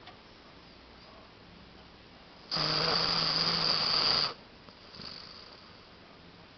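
Shar-pei dog snoring in its sleep: one loud snore of nearly two seconds with a steady low pitch and a hissy rasp, then a much fainter breath about a second later.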